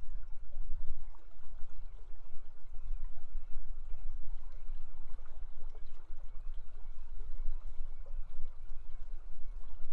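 Steady sound of river water flowing past grassy banks, an even wash of noise over a low rumble.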